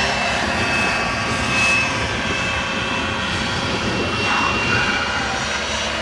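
Radio-controlled model helicopter flying overhead: its engine gives a high-pitched whine that fades in and out over a steady rushing noise.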